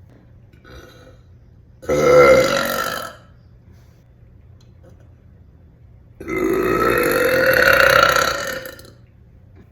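A young woman burping loudly twice: a burp of about a second near two seconds in, then a longer one lasting nearly three seconds about six seconds in.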